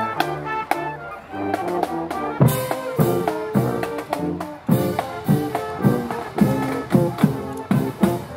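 Marching band playing a march: brass (trumpets, sousaphone) and saxophones carrying the tune over bass drums beating about twice a second.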